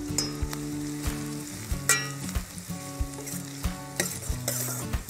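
Chopped onions and curry leaves sizzling as they fry in oil in a stainless steel kadai, while a steel ladle stirs them, knocking and scraping against the pan. One sharper, ringing clink comes about two seconds in.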